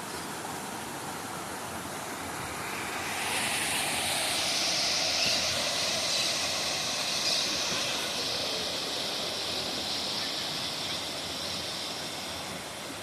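Rushing water of a waterfall: a steady hiss that grows louder about three seconds in and then slowly eases.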